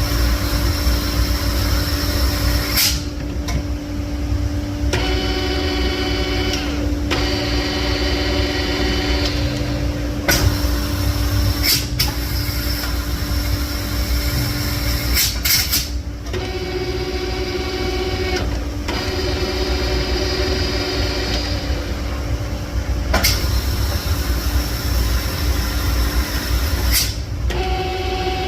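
A small electric motor whining in short runs of about two seconds, starting and stopping several times, with a few sharp clicks, over a steady low shop rumble and hum.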